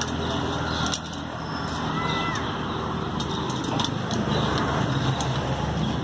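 Steady outdoor background noise with faint distant voices and a few light clicks.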